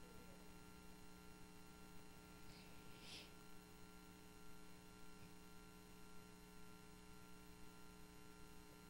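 Near silence: a faint steady electrical mains hum, with a brief faint hiss about three seconds in.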